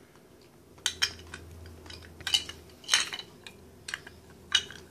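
Hard plastic Lego Duplo pieces being handled and fitted together, clacking sharply about six times at irregular intervals.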